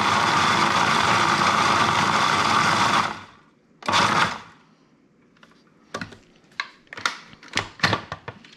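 Food processor motor running steadily while it chops tomatillos, onion and chilies finer into a saucy salsa, then switched off about three seconds in and spinning down. A brief pulse follows near four seconds. After that come several sharp plastic clicks and knocks as the lid and feed tube are worked off the bowl.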